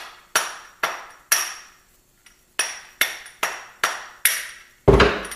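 Rubber mallet striking a 28 mm socket set on a Ducati dry-clutch hub, knocking the hub out of its cush drive rubbers. There are about eight sharp knocks, each with a brief metallic ring: three, a short pause, then five more. A heavier thump comes near the end.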